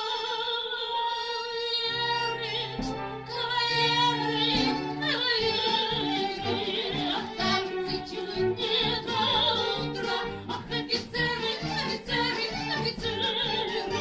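A song: a woman's voice singing long held notes with vibrato, over an instrumental accompaniment that comes in about two seconds in.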